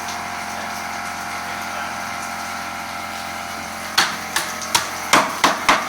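A steady machine hum, then from about four seconds in about half a dozen sharp hammer blows in quick succession.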